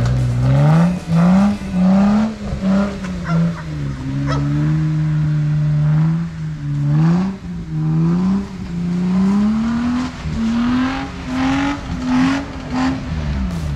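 Jeep Wrangler's engine revving up and down in repeated bursts, its pitch rising and falling every second or so, as it works to climb a rocky ledge.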